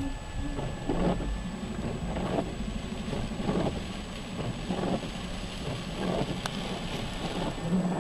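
Heavy rain heard from inside a running car, with the engine's low rumble underneath and a regular beat about every second and a quarter.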